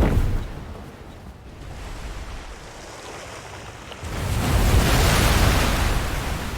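Layered cinematic sound effects: a sudden heavy hit at the start, then a steady rushing noise of wind and surf. About four seconds in, the rush swells loud, then slowly fades.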